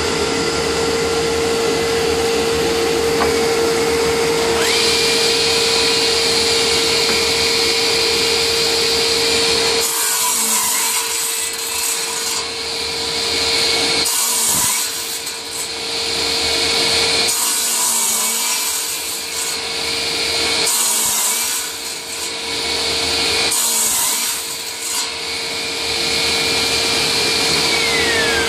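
A DeWalt radial arm saw starts about five seconds in, its motor whine rising and then holding steady over the steady hum of a dust collection system. The blade makes about five crosscuts through wooden blocks. Near the end the saw is switched off and its whine falls as the blade winds down.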